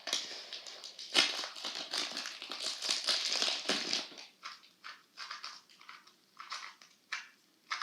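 Packaging rustling and crinkling as it is handled, dense for the first few seconds, then thinning to scattered light rustles and clicks.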